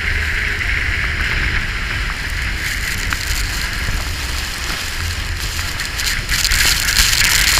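Steady roar of the Iguazu waterfalls mixed with a tour boat's engine, with wind rumbling on the microphone. From about six seconds in, a louder hiss of spray showers over the boat as it nears the falls.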